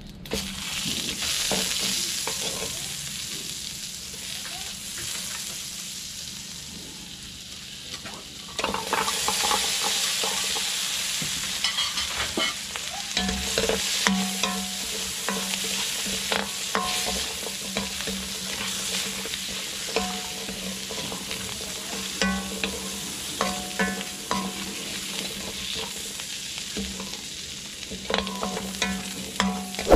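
Butter and whole garlic cloves sizzling in a metal wok, the hiss growing louder about eight seconds in. From about twelve seconds on, a metal ladle stirs them, clanking and scraping against the wok, some strikes ringing briefly.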